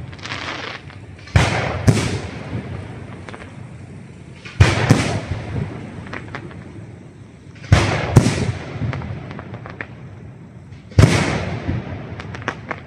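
Aerial firework shells bursting overhead, a sharp bang about every three seconds, some in quick pairs, each trailing off in a long rolling echo. Small crackling pops follow some bursts.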